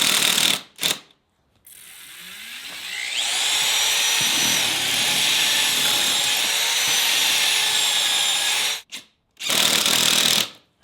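Handheld electric power tool, run in short trigger bursts. It then spins up with a rising whine and runs steadily at full speed for about five seconds before cutting off. One more short burst follows near the end.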